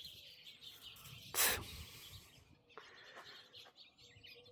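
Small birds chirping in the background, the chirps growing busier in the second half. About a second and a half in there is one short burst of rustling noise.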